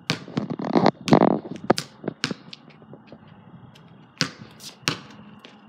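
A basketball bouncing on a concrete driveway as it is dribbled: sharp thuds at uneven intervals, the heaviest in the first second or so.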